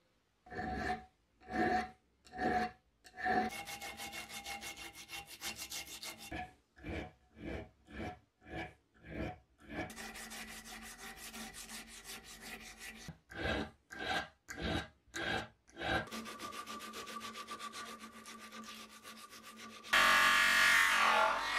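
Abrasive strip drawn back and forth across a metal blowtorch valve body clamped in a vise. It goes in bouts: a few separate slow rasping strokes, then quick continuous rubbing, then slow strokes again. Near the end a louder, denser noise takes over as the part is pressed against a spinning buffing wheel on a bench grinder.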